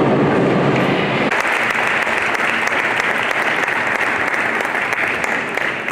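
Crowd applauding. There is mixed crowd noise for about the first second, then steady clapping.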